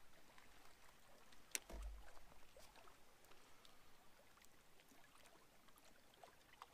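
Near silence: faint water lapping at the shoreline, with scattered faint ticks and one sharp click about a second and a half in.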